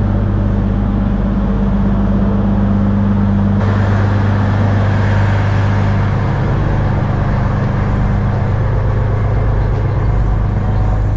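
Steady low hum of a standing intercity train's engines, with a brighter hiss joining about three and a half seconds in.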